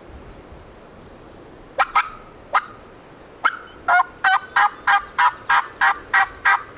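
Hunter's turkey call sending out hen yelps to draw a gobbler's answer: three sharp notes, then a steady run of about ten evenly spaced yelps, roughly three a second.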